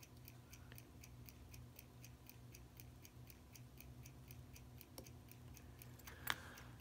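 Faint, steady ticking of a running mechanical watch, about five ticks a second. A couple of small sharp clicks of metal parts come about five and six seconds in.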